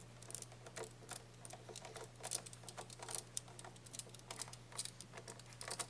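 Faint, irregular small clicks and taps: hands working screws and the plastic casing of an air fryer during reassembly. A steady low hum runs underneath.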